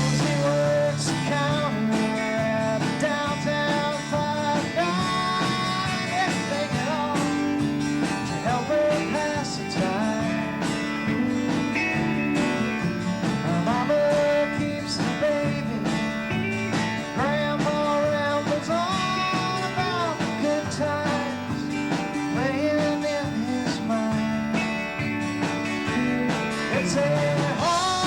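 Live band playing a country-style song, with guitars strumming and picking.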